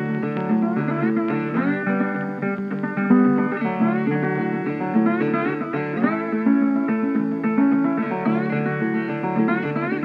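Instrumental background music led by plucked guitar, with some notes sliding in pitch.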